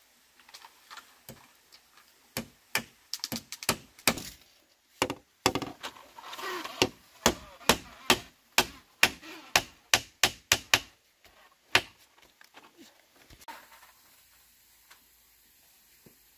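A run of sharp blows, irregular at about two or three a second, that thin out after about twelve seconds, with a brief voice in the middle.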